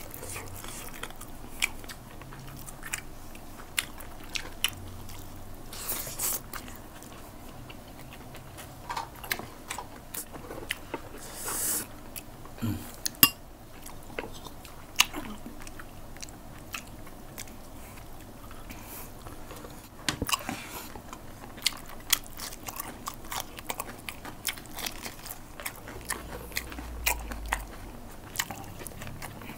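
Close-miked chewing and biting of spicy chicken adobo and rice eaten by hand, with many sharp mouth clicks and a few short crunches.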